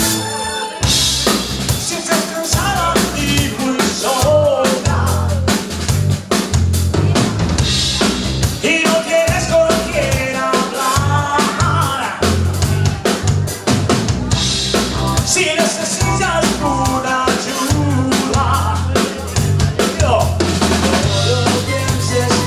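Live band playing a song, the Yamaha drum kit loud and busy with bass drum, snare and rimshots, and a pitched melody running over it.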